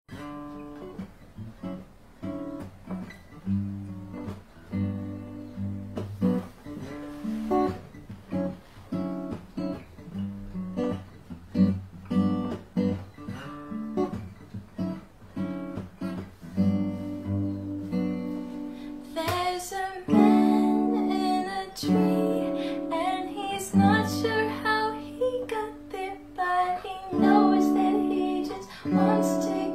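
Acoustic guitar playing the instrumental introduction of a song, plucked and strummed in a steady rhythm. The arrangement gets fuller and louder about two-thirds of the way in.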